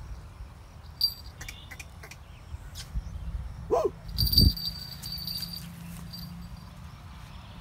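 Two short animal calls close together about four seconds in: the first a quick cry that bends up and down in pitch, the second lower and louder, over light outdoor background noise.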